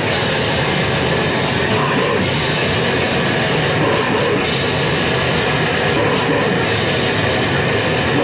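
Heavy metal from a 1987 demo tape: loud, dense distorted guitars and drums playing without a break.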